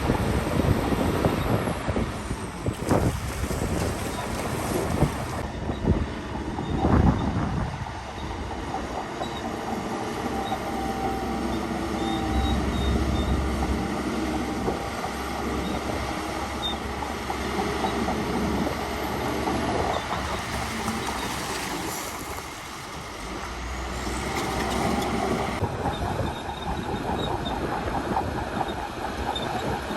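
Heavy diesel earthmoving machinery working, a steady low engine rumble throughout, with a few knocks and clanks in the first several seconds.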